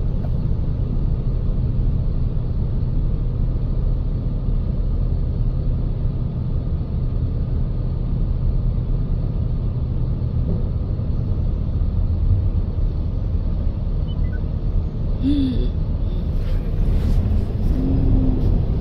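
Steady low rumble of a car heard from inside its cabin while it idles and creeps in city traffic. A few short faint sounds break in near the end.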